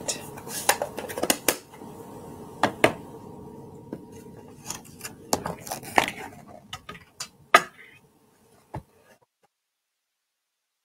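Scattered sharp clicks and knocks of hard plastic stamping supplies being handled: a plastic ink pad case and a clear acrylic stamp block picked up, set down and put away. The clicks thin out and stop about nine seconds in.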